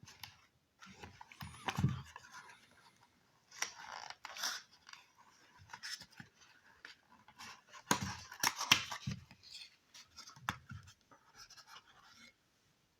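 Cough syrup packaging being handled: irregular scraping, rustling and light knocks, loudest about two seconds in and again around eight seconds in.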